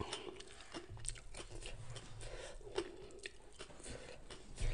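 A person chewing a mouthful of crunchy food, with many small, crisp crunches in quick, irregular succession.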